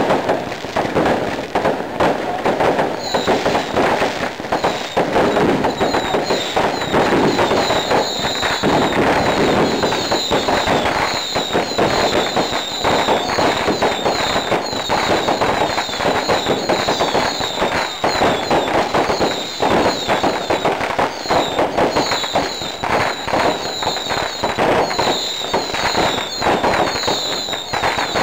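Fireworks crackling and popping densely and without pause. From a few seconds in, many short, high whistles cut through again and again.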